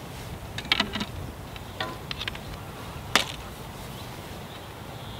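Fishing tackle being handled: a handful of light clicks and knocks, the sharpest about three seconds in, over a steady hiss.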